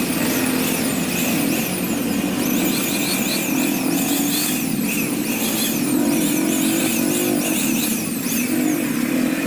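Handheld electric aspirator blower running steadily at full power, its motor drone wavering a little as it is moved about.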